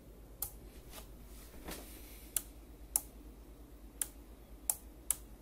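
Sharp clicks at an uneven pace, about eight in all, as the Kenwood TS-430S HF transceiver is keyed in CW into a dummy load.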